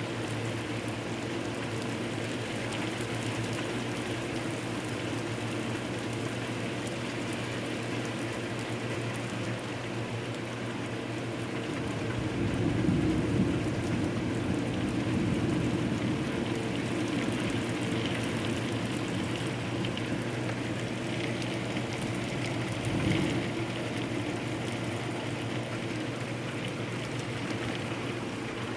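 Hard rain falling steadily during a thunderstorm, with a low rumble of thunder swelling a little before halfway through and a shorter rumble later on.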